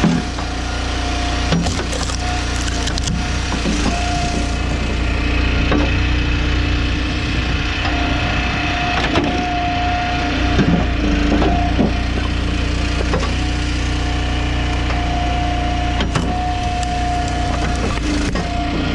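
Gas-engine hydraulic log splitter running steadily, with a whine that comes and goes and wood cracking and splitting apart several times.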